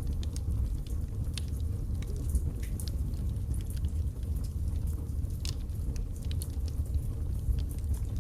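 Logs burning in a fireplace: a steady low rumble of the flames with frequent, irregular sharp crackles and pops.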